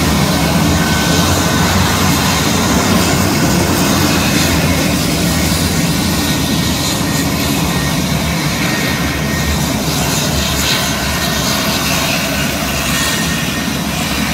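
Turboprop engines of KAI KT-1B Wongbee trainers taxiing, a steady loud propeller and turbine drone that eases a little toward the end as the aircraft pass by.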